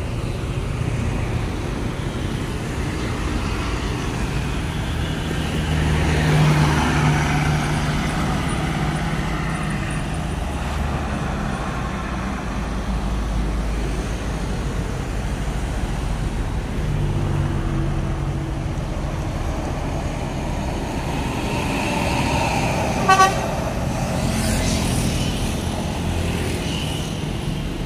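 Road traffic: cars and motorcycles driving past, with louder engine sounds as vehicles pass close about six and seventeen seconds in. A vehicle horn gives one short toot about three quarters of the way through.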